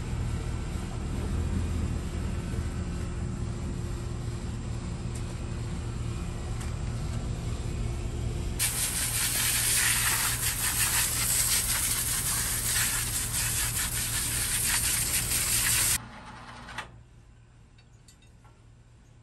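Water from a garden hose spray nozzle hissing onto a dead wild boar's hide and the wire-mesh carrier under it, starting a little under halfway in and cutting off suddenly several seconds later. Before the spray, a steady low hum.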